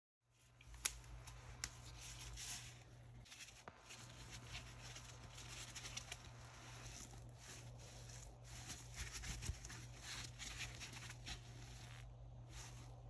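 Dry layered foam scrub sponges squeezed and twisted in nitrile-gloved hands: faint, crackly rustling of foam and glove with scattered sharp clicks, the loudest about a second in.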